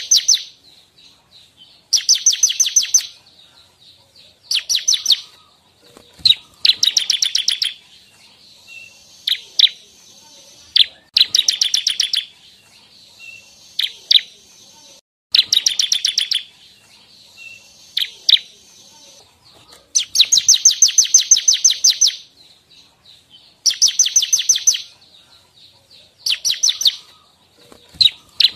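Bar-winged prinia (ciblek) singing: loud, rapid trills of high repeated notes, each about a second long, coming every two to four seconds, with softer single chips between them.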